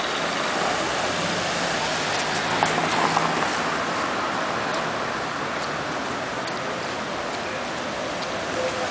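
Street traffic: cars passing slowly, a steady hiss of tyres and engines, with a faint engine hum between about one and three and a half seconds in.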